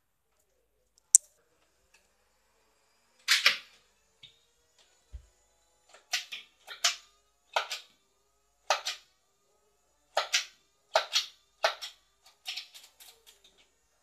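Nerf dart blaster firing a string of shots, each a short sharp clack, about ten in quick succession over the second half with a single one a few seconds in. A lone sharp click comes about a second in.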